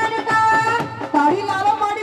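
A woman sings a Punjabi folk song live through a microphone and loudspeakers, holding a long note at the start and then moving on, while dhol drums beat underneath.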